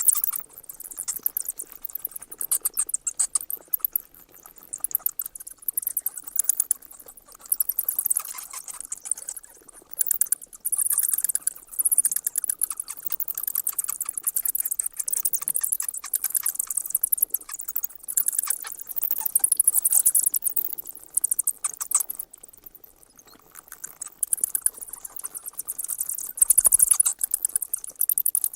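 Bats squeaking: rapid, high-pitched chittering squeaks in dense volleys, easing into a short lull about two-thirds of the way through before picking up again.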